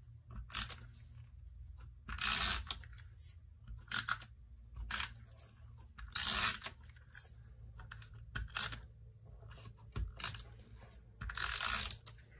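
Handheld tape runner laying adhesive along the backs of paper strips: a series of short scratchy strokes every second or two, with paper handled and shifted on a craft mat between them.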